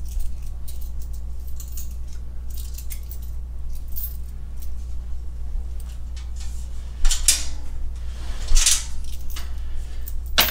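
Steel folding welding table rattling and clinking as it is handled and set upright on its legs, with two louder metal clatters about seven and eight and a half seconds in and another right at the end.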